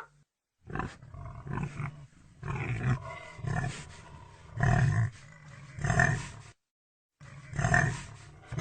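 Pig grunting: a string of short, deep grunts about one a second, with two brief cuts to silence.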